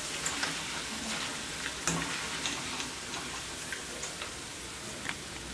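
Cornflakes deep-frying in hot oil in a steel pan: a steady sizzle with a few scattered light clicks.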